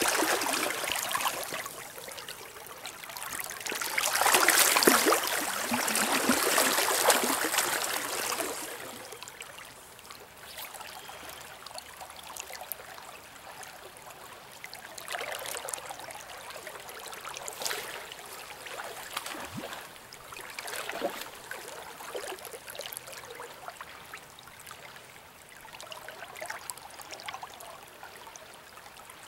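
River current flowing and rippling around a wader. For the first eight seconds or so there are louder swells of sloshing as legs in waders push through the water.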